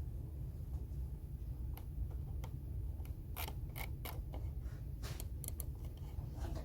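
Scattered clicks and short scraping or rustling noises from objects handled during desk work, with a cluster of them about five seconds in, over a steady low hum.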